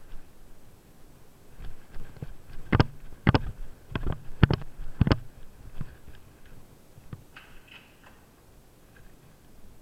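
Footsteps going down stone stairs: a run of about six sharp, clacking steps in the middle, then a short scraping sound near the end.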